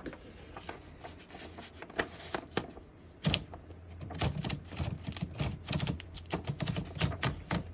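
Mechanism of a 1924 Underwood 3-bank portable typewriter clicking as it is worked: a few scattered clicks, then about three seconds in a quick run of clacks, several a second.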